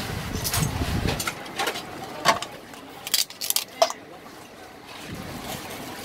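A metal spoon clinking against a stainless steel mixing bowl while a seafood salad is tossed, with a handful of sharp, ringing clinks between about two and four seconds in.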